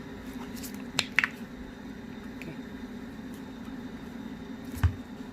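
Gimbal accessories and packaging being handled: two sharp clicks about a second in and a dull knock near the end, over a steady low hum.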